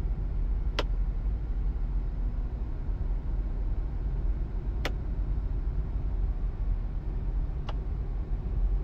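Steady low road and engine rumble heard from inside a pickup truck's cab while driving, with three faint clicks spread through it.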